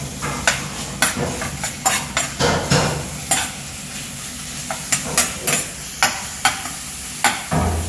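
Diced raw chicken and garlic frying in olive oil in a steel frying pan, sizzling, while a metal spoon stirs them, clinking and scraping against the pan at irregular intervals.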